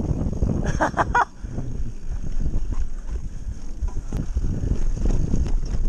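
Wind buffeting the action-camera microphone and knobbly mountain-bike tyres rumbling over a dirt trail on a fast downhill run, with a brief high-pitched, honk-like squeal about a second in.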